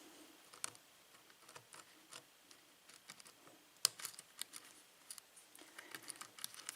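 Faint, irregular clicks and ticks of a lock pick working the pins of a six-pin Schlage lock cylinder held under light tension, with one sharper click about four seconds in.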